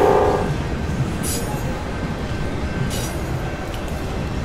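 Recorded train sounds: a train horn fading out just as it begins, then the steady rumble of a moving train with two short hisses.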